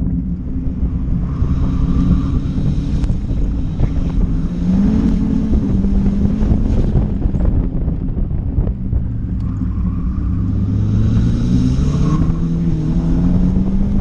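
Turbocharged Mazda Miata's four-cylinder engine running hard on track, its pitch climbing about four seconds in and again near the end as it accelerates. Heavy wind buffeting on the microphone in the open cockpit.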